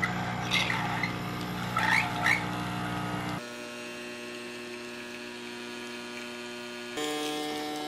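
illy Y3.3 capsule espresso machine's pump humming steadily as it brews a shot, the hum dropping in pitch about three and a half seconds in and rising again near the end. A few brief louder noises in the first couple of seconds.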